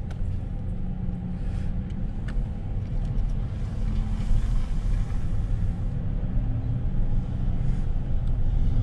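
Pickup truck driving with a boat trailer in tow, heard from inside the cab: a steady low rumble of engine and road noise, with a faint engine hum.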